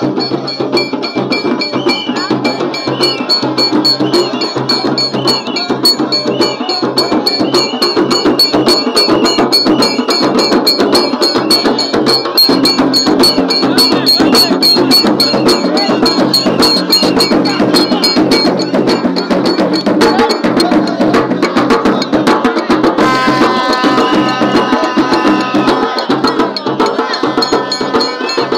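Procession music: large hand-held frame drums beaten in a steady rhythm, with a crowd singing along. Near the end a plastic horn blows two long notes.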